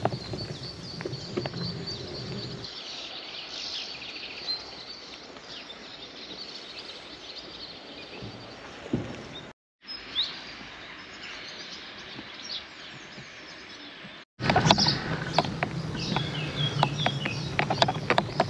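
Outdoor ambience with small birds chirping, broken into short segments by abrupt cuts; about fourteen and a half seconds in it changes to a louder low rumble with many quick clicks.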